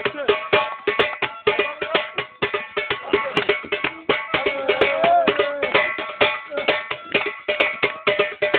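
Davul and zurna playing a fast Turkish folk dance tune: a quick, even drum beat under the zurna's held, piercing melody lines.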